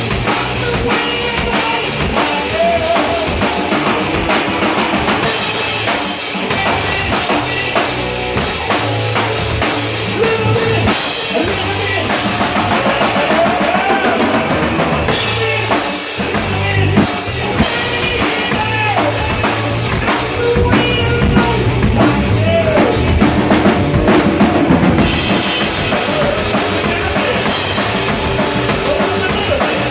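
Music with a drum kit playing a beat of bass drum and snare, with other pitched instruments or voice over it.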